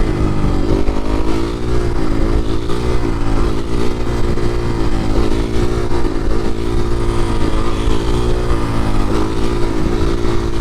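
2019 Suzuki RM-Z450's 450cc single-cylinder four-stroke engine, with a freshly rebuilt top end, running under way. Its pitch dips and climbs back every second or two as the throttle is rolled off and on through the gears. A low wind rumble sits under it.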